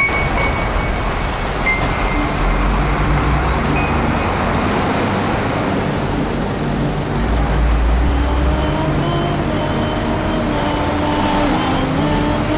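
Street traffic noise: a steady rush of passing cars and other vehicles.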